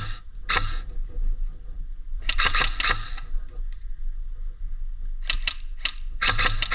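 Airsoft gun firing in short bursts of sharp clicking shots with pauses between, the shots in each burst coming several to the second. The longest burst starts near the end. A steady low rumble runs underneath.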